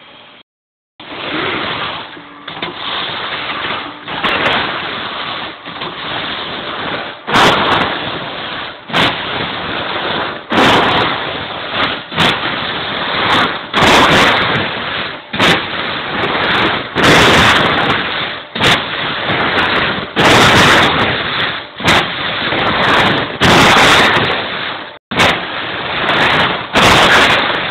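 CNC punch press punching sheet metal, starting about a second in: loud, noisy stretches a second or two long, broken by brief gaps, with sharp cracks now and then.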